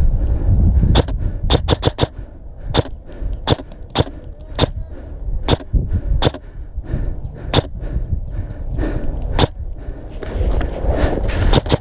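Airsoft guns firing single shots: sharp cracks at irregular intervals roughly a second apart, with a quick string of four about a second and a half in and another cluster near the end. A low rumble of wind or movement on the microphone runs underneath.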